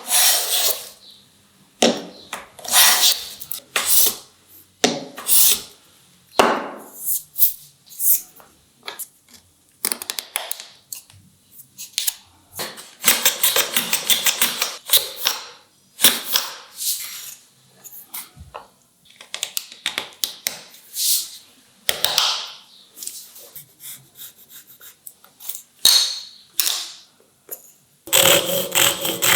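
Hand woodworking on timber: a run of separate knocks and short scraping strokes, some in quick clusters, with pauses between. Music comes in near the end.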